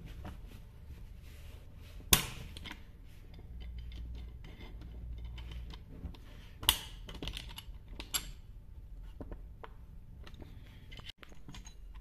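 Small metallic clicks and rattles of a hand tool and loose parts on a stripped-down chainsaw crankcase, with a sharp metal click about two seconds in and two more later.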